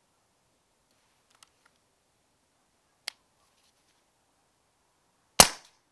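A single shot from a moderated Walther Rotex RM8 PCP air rifle near the end: one sharp crack that dies away quickly. A few faint clicks come before it.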